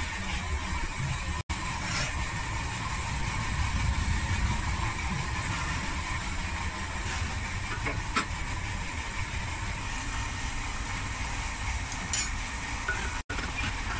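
Steady low roar of a glassblowing studio's gas-fired furnace and glory hole burners with their blowers, with a few light clinks of glass tools.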